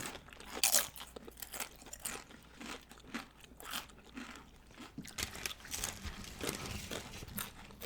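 Crunching bites and chewing of loaded nachos, tortilla chips cracking under the teeth, close to the microphone.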